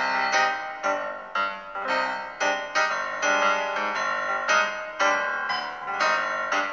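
Piano music: notes and chords struck in a steady rhythm.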